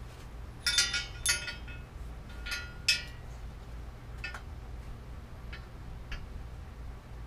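Metal bicycle parts clinking and knocking together as a bicycle fork is handled, a few sharp ringing clinks in the first three seconds, then a few light ticks.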